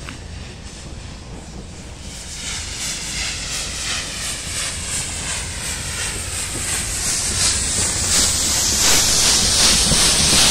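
NGG16 Garratt narrow-gauge steam locomotive working as a light engine: steady exhaust chuffs under a heavy hiss of steam, growing louder from about two seconds in as the engine approaches.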